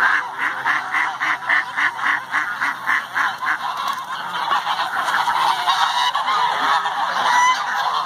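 A large mixed flock of geese, ducks and chickens calling all at once, clamouring to be fed: a dense din of overlapping honks and squawks, with a fast run of repeated calls, about four a second, in the first three and a half seconds.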